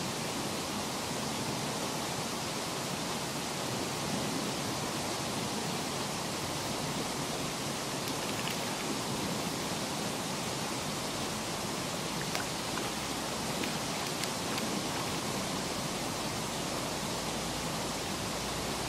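Steady rush of flowing river water, an even noise with a few faint ticks.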